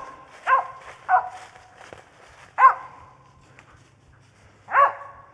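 Mountain feist barking treed at a squirrel hiding up a tree: five sharp barks at uneven intervals, each with a short echo after it.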